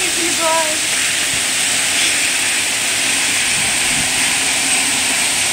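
Heavy rain pouring down during a thunderstorm: a loud, steady hiss.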